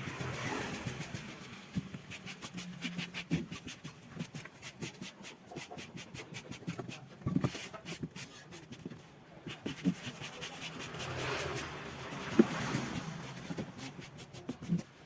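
Scattered light knocks and rubbing or scraping noises from hands-on work, with two longer stretches of rubbing, one at the start and one about eleven seconds in.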